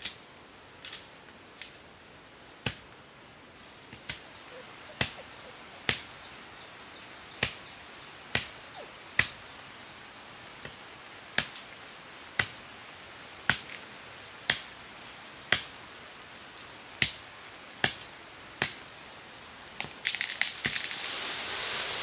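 A machete chopping into a green bamboo stalk, each stroke a sharp crack, about one a second with uneven spacing. Near the end a louder, longer rustling crash follows as the cut stalk falls through the leaves.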